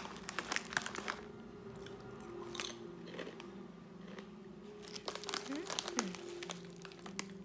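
Foil snack-chip bag crinkling as it is handled, loud and crackly in the first second, then quieter rustles as a hand reaches in among the chips.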